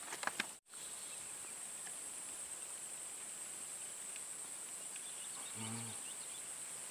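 Steady high-pitched insect chorus buzzing continuously over quiet swamp ambience. It drops out for an instant about half a second in.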